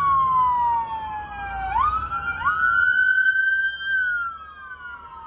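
Police car sirens wailing: two sirens whose pitches slide slowly down and up, overlapping and out of step with each other, each leaping back up in pitch about two seconds in.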